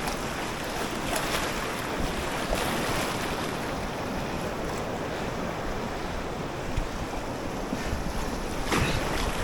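Rushing river water around a kayak, with wind buffeting the microphone and a few brief splashes.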